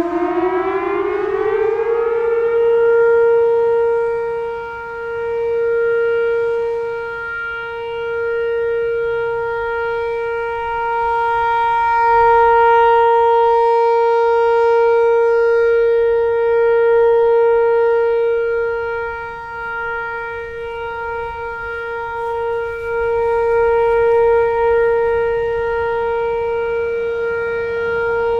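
Whelen WPS-4004 electronic outdoor warning siren sounding its steady alert tone. It winds up in pitch over the first couple of seconds, then holds one steady note, swelling and fading slowly as the rotating head turns.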